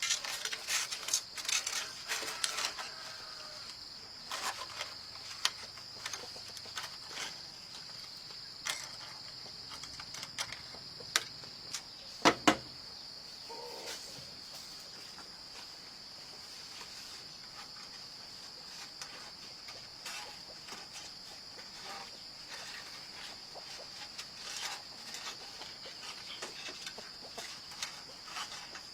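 Steady high-pitched insect drone throughout, with scattered clicks and knocks from work nearby, the loudest two sharp knocks about twelve seconds in.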